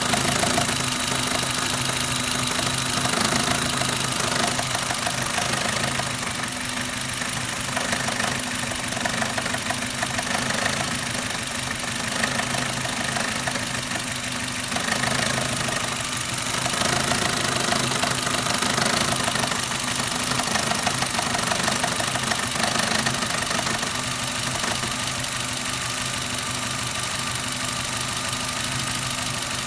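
Suzuki Ignis's M13A 1.3-litre four-cylinder petrol engine running steadily with a fast, even knock in it: an extraneous sound whose cause is still being sought.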